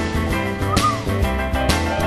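Music with a steady beat and a strong bass line.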